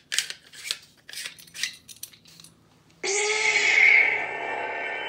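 A run of light metallic clicks as the lightsaber hilt's pommel section is twisted back on. About three seconds in, the saber's soundboard suddenly plays its boot sound through its speaker: an electronic, tone-rich power-up sound that carries on.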